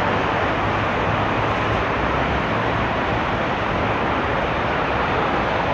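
Steady noise of heavy traffic on a busy multi-lane city road: engines and tyres blending into one continuous sound with a low rumble underneath.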